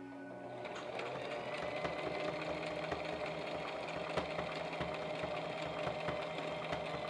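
Brother XL2600i sewing machine stitching a hem through knit fabric: the motor picks up speed in the first second, then runs at an even, steady pace with the needle working rapidly.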